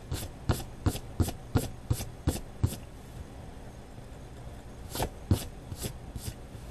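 A hand sweeping across watercolour paper, brushing off eraser crumbs, in quick strokes about three a second: a run of about eight, a pause, then four more.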